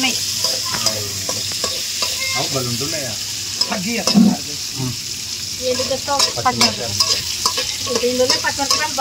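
Onions and tomatoes frying in hot oil in a cooking pan, sizzling steadily as they are stirred.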